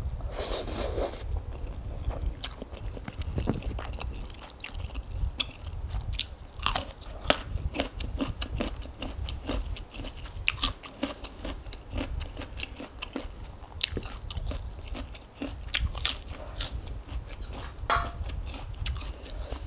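Close-miked chewing of a big mouthful of spicy khanom jeen rice-noodle salad, with many short wet mouth clicks and smacks and some crunching.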